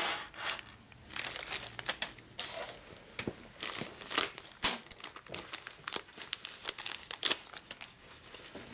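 Thin white parts wrapper crinkling and rustling in the hands as bolts are unwrapped from it: a run of irregular quick crackles.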